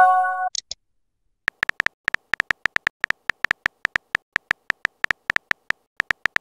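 Texting-app sound effects: a short electronic chime as a message is sent, then about a second later a steady run of keyboard tap clicks, about five a second, as the next message is typed.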